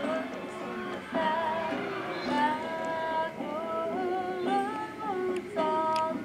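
Music: a melody of held, slightly wavering notes, sung by a high, female-sounding voice, over a plucked string accompaniment.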